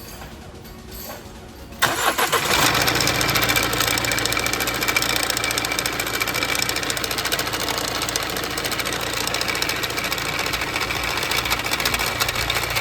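BMW F48 engine cranked and starting about two seconds in, then running steadily with a fast clatter: the abnormal starting noise put down to a failing crankshaft damper pulley.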